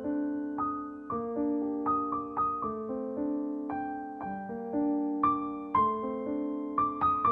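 Background music: a slow piano melody, single notes struck one after another and ringing on as they fade.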